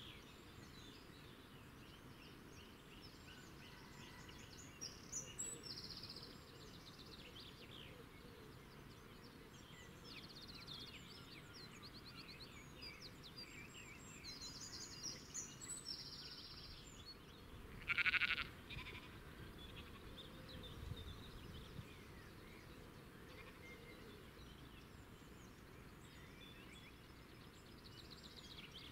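Quiet outdoor field ambience with faint hiss and scattered small high chirps and trills. One short, louder animal call comes about 18 seconds in.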